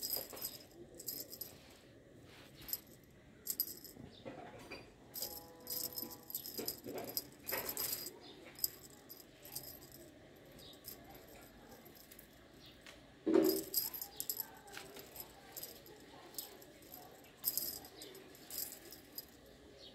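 Small metal bell on a feather wand cat toy jingling in many short, irregular shakes as the toy is waved and batted, with one short louder sound about two-thirds of the way through.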